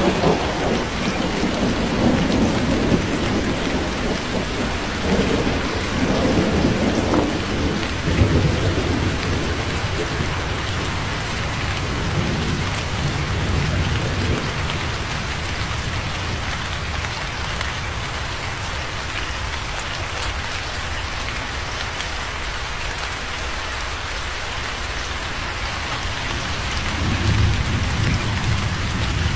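Steady heavy rain falling, with thunder rolling in low rumbles through the first several seconds, easing off, then rumbling again near the end.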